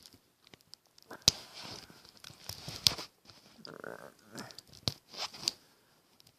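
Plastic shrink-wrap being cut and torn off a Blu-ray box set, crinkling in short irregular bursts with a few sharp clicks, the loudest about a second in and near three seconds in.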